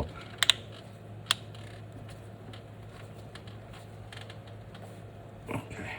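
Plastic locking tabs of a new PCV valve cover snapping into place on a BMW N20 engine's valve cover. There is a quick double click about half a second in and another sharp click just over a second in, then a few faint ticks.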